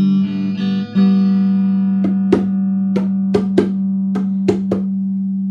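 Electric guitar ringing on one held note. Over it, about seven sharp hand slaps on a hand drum about halfway through.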